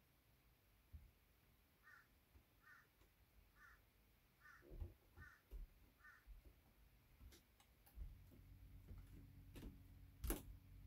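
Faint bird calls in the background, a series of six short calls a little under a second apart, over near silence. Later come soft handling knocks and a low hum, with one sharp click near the end.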